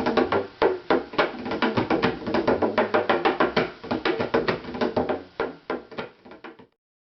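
Percussive music-like sound: a fast, uneven run of sharp knocks over a steady ringing tone, cutting off suddenly near the end.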